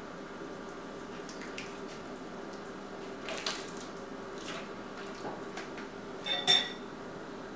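Wet squelches and slaps of a raw, seasoned pork loin being handled and turned over on a wooden cutting board, over a steady low hum. A louder knock comes about six seconds in.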